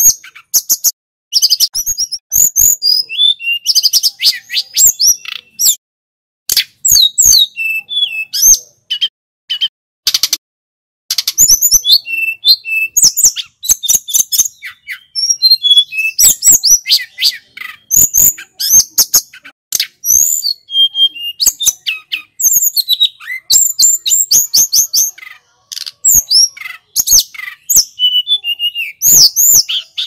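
Male tledekan gunung (hill blue flycatcher) singing: loud, fast phrases of high-pitched warbling and chirping notes, one after another with short pauses between them.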